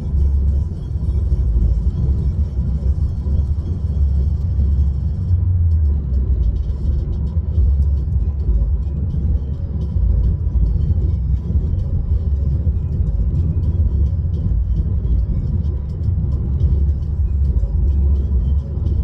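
Steady deep rumble of a car's cabin noise.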